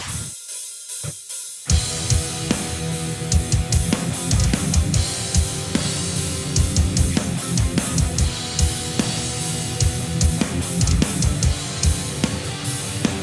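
Heavy metal band mix: the Jackson Dinky DX10D electric guitar playing over a drum kit with a busy bass drum, cymbals and snare. Just after the start the low end cuts out for about a second and a half, then the full band comes back in.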